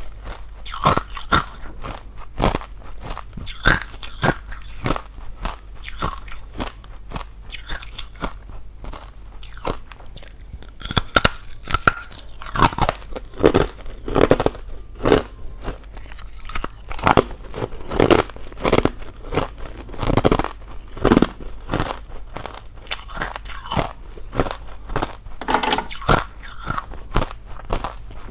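Hollow ice being bitten and chewed close to a clip-on microphone: a dense, irregular run of sharp crunches.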